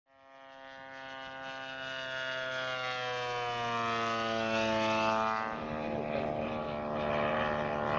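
Radio-controlled scale WWII fighter flying past, its motor and propeller making a steady droning note that fades in and slides slowly down in pitch as it goes by.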